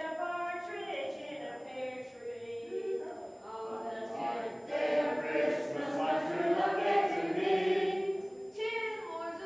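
A mixed group of older men and women singing together.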